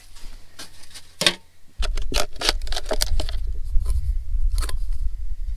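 Footsteps on dry dirt and the light clicks and scrapes of empty cans being handled and set down on a dead wooden stump. A low rumble of wind on the microphone comes in about two seconds in.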